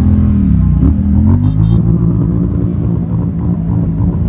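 Several motorcycles ride slowly past at close range with their engines running. One engine's pitch falls over the first second, then the engines run steadily at low revs.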